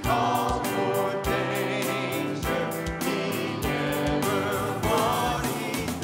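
Live praise and worship band playing a gospel song: voices singing over keyboard, electric guitar and drums with a steady beat.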